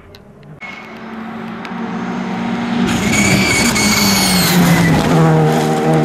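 Rally car approaching at speed, its engine revving hard and growing steadily louder, with a drop in engine pitch about five seconds in.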